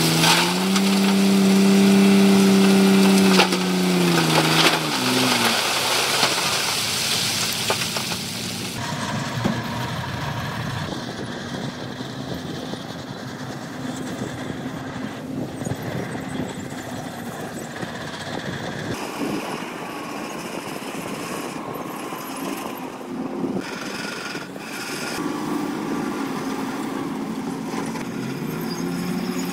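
A heavy dump truck's diesel engine is held at high revs while it tips its load of rock, then drops back about four seconds in. After that comes rough crunching and clattering of rock being shoved by a crawler dozer, with machine noise under it, and an engine revs up again near the end.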